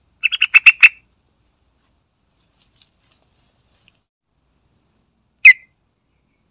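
Yellow-vented bulbul calling: a quick burst of about six sharp, chattering notes right at the start, then a single short note about five seconds later.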